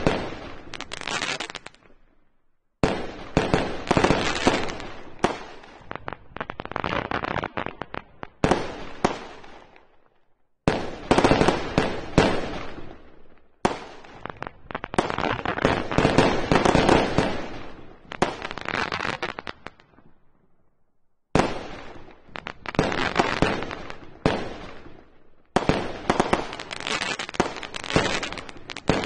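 Fireworks display: long volleys of rapid bangs and crackles from bursting shells, broken off abruptly by short silent gaps several times.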